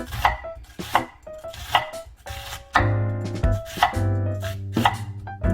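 Kitchen knife slicing onions into thin strips on a cutting board: a steady run of sharp strokes, about two to three a second, over light background music.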